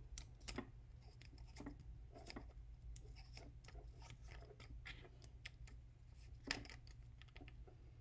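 Faint, irregular small clicks and scrapes of hands working the parts of a black plastic Bulgin PX0731/S cable connector, with one louder click about six and a half seconds in. A faint steady low hum lies under it.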